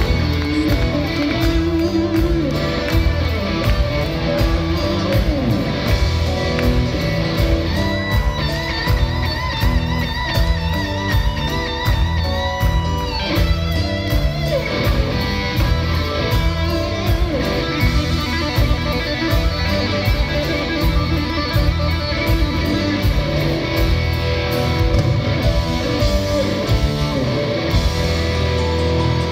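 Live rock band playing at full volume, with electric guitar leading over drums, bass guitar and keyboards, recorded from among the audience.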